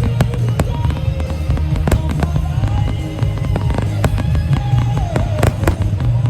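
A fireworks finale barrage: shells bursting in quick succession, with sharp cracks over a continuous deep booming rumble.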